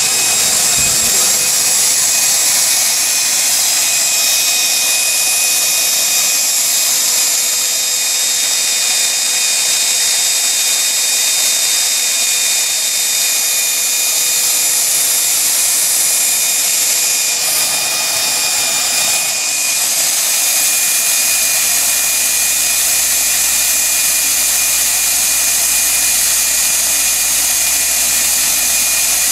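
Cordless drill running continuously at a steady speed with a sanding drum in its chuck, grinding down a small part held against the drum in a pair of side cutters.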